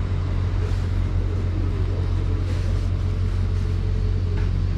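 A vehicle engine idling: a steady, even low rumble.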